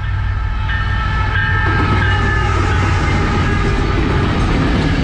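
Canadian National diesel-electric freight locomotives passing at close range: a loud, steady, heavy engine rumble with several steady high tones ringing above it.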